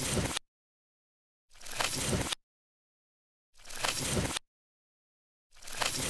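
A crumpling, crushing sound effect: a crackly crunch lasting about a second, repeated four times about every two seconds with dead silence between.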